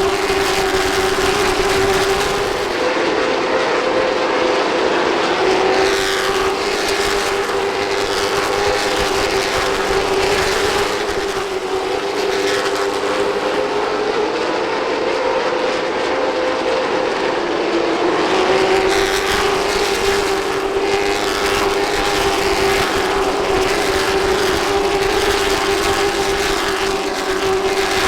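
A pack of short-track race cars running at racing speed: engines held at high revs, the pitch stepping up and down every few seconds as the cars accelerate down the straights and lift for the turns.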